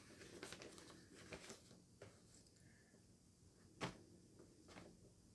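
Near silence with a few faint, brief taps and handling sounds, the loudest about four seconds in.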